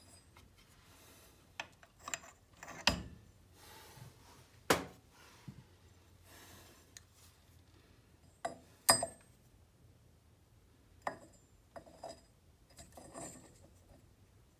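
A run of scattered sharp clicks and light metallic taps, with some rubbing, as the piston and wrist pin of a chainsaw's two-stroke engine are taken off and handled.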